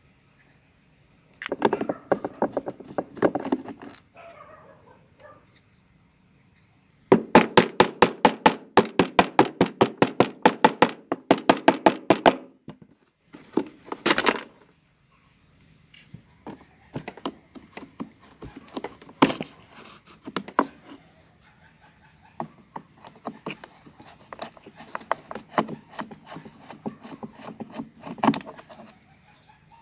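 Hand-tool work on metal parts: a stretch of scraping clicks, then a long run of rapid, even clicks or taps, about five a second, then scattered clicks and knocks.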